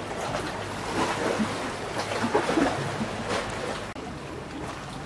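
Calm sea water lapping and splashing softly against shoreline rocks, in small irregular wavelets.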